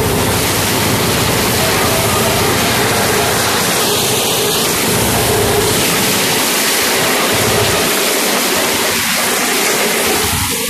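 T-25 tractor's two-cylinder air-cooled diesel running with its cutter-bar mower working through tall grass, heard as a loud, even rush of noise. The engine's low throb weakens in the second half.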